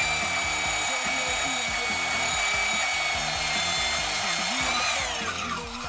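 Portable band saw cutting through steel tubing: a steady high whine with a rough rasp. Near the end its pitch falls and it winds down.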